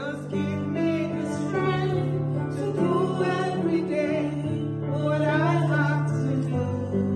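A woman singing a song over held chords on an electric keyboard, her voice gliding between long, sustained notes.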